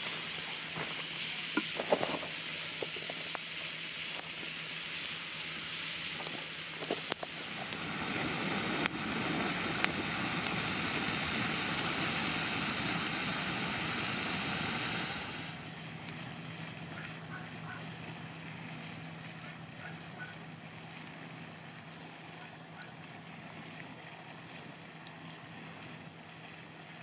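Chickpeas in broth boiling hard in a cast-iron skillet over a wood fire: a steady bubbling hiss with a few sharp crackles from the burning wood. The bubbling grows louder partway in and drops quieter about halfway through.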